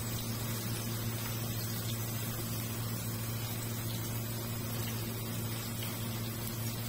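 Minced-chicken patties frying in oil in a non-stick pan, a steady soft sizzle over a constant low hum.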